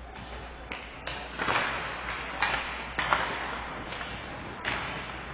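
Ice hockey play after a faceoff: about five sharp knocks and scrapes of sticks, puck and skate blades on the ice, spread over a few seconds.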